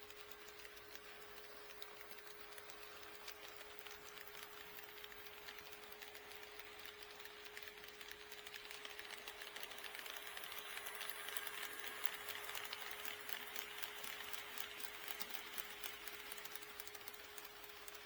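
HO scale model train running past on sectional track, its motor whirring and its wheels clicking rapidly over the rail joints. It grows louder from about eight seconds in, is loudest a few seconds later, then eases off a little.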